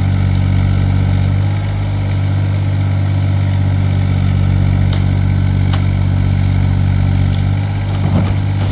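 John Deere 26G mini excavator's diesel engine running steadily under the operator's work, with a few light clicks over it.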